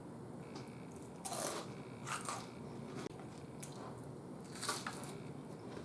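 Chewing crispy fried pork-belly chicharrones: a few sharp, crisp crunches spaced about a second apart.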